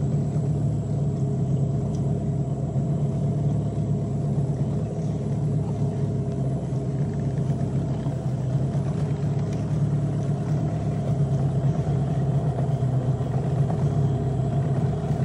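A small boat's motor running at a steady speed, its pitch unchanging.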